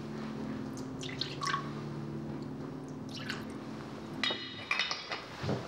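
Liquor poured from a glass decanter into whiskey tumblers in short splashing pours, with a bright ringing clink of glass on glass a little past four seconds in and a few lighter knocks after it.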